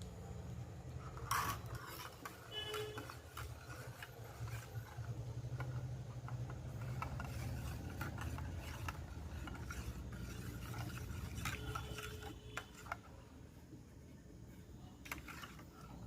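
Spoon and pan sounds of stirring in a kitchen: scraping and scattered metallic clinks, the sharpest about a second in, over a low steady hum.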